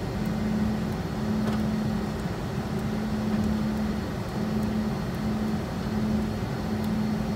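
Steady in-flight cockpit noise of a Gulfstream G550 business jet: an even rush of airflow and engine noise, with a low hum that breaks off briefly about every second.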